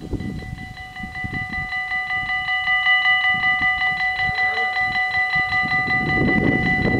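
Dutch level-crossing warning bells ringing in rapid, evenly repeated strokes, growing louder over the first few seconds and then holding steady. This is the crossing's warning that a train is approaching and the barriers are about to come down.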